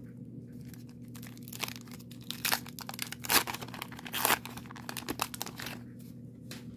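The wax-paper wrapper of a 1990 Donruss baseball card pack being torn open and crinkled by hand, in a run of short crackling rips. The loudest rips come about three and a half and four and a half seconds in.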